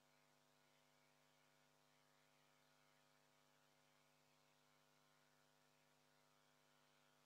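Near silence, with a faint steady hum and hiss.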